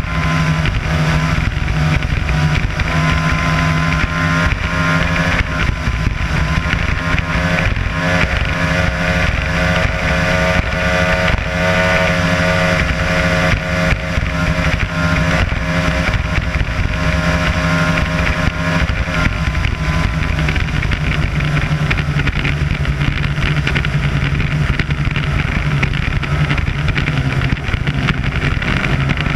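Mercury 225 Sport XS outboard motor running steadily at speed, with hull, water and wind noise. Its tone changes a little about two-thirds of the way in.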